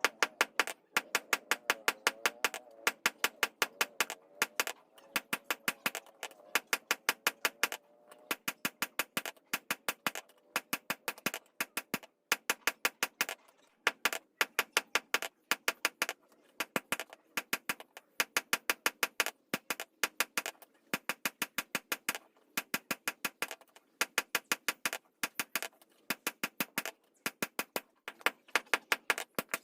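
Rapid light hammer strikes on metal, several a second, coming in short bursts of about a second with brief pauses between them, as in forging a dao blade.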